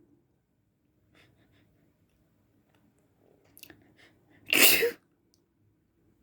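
A person's single loud, uncovered sneeze, about four and a half seconds in and lasting about half a second, preceded by a few faint short sounds.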